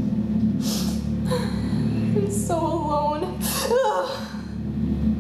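A young woman's gasping, sobbing cries of pain and distress, with sharp intakes of breath about a second in and a wavering, whimpering cry around three to four seconds in, over steady background music.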